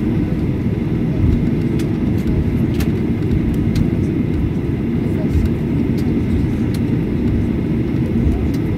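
Cabin noise of a Boeing 737-800 taxiing: a steady low rumble from its CFM56 engines at taxi power and the airframe rolling over the apron, with a few faint ticks.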